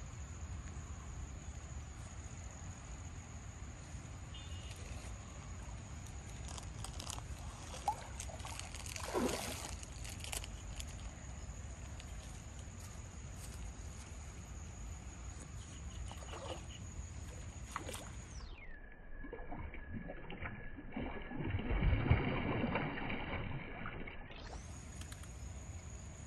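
Waterside ambience with a steady high insect drone. Occasional water sloshing and splashing comes through it, loudest in a burst about 22 seconds in.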